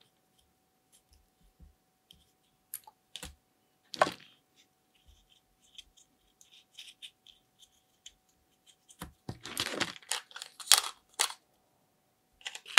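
Hard plastic toy food pieces and a plastic toy shopping basket clicking and clattering as they are handled: scattered light clicks, a sharper knock about four seconds in, and a quick run of clicks and rattling from about nine to eleven seconds in.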